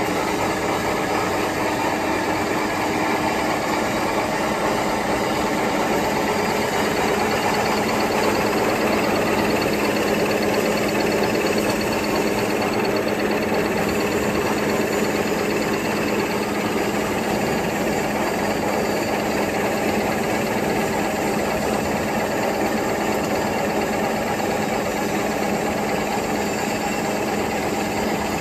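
High-speed napkin paper folding machine running steadily: an even mechanical noise with a fast, regular beat and a low hum.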